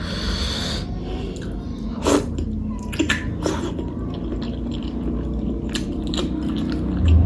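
A person chewing boiled egg close to the microphone, with a few short wet mouth clicks about two, three and three and a half seconds in, over a steady low background hum.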